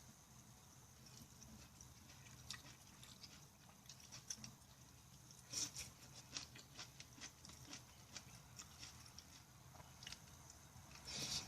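Faint, close-up chewing of soft vegetable curry: scattered wet mouth clicks that come thicker and louder from about halfway through, with a louder burst near the end.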